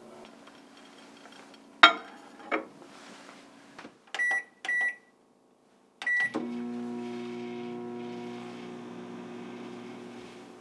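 Microwave oven: two sharp clacks, then three short keypad beeps, then the oven starts running with a steady hum that slowly gets quieter.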